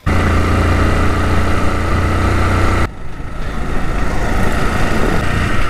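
Motorcycle engine running while riding along a road, a steady low note with a rush of noise over it. About halfway through the low engine note drops off abruptly and the sound turns noisier.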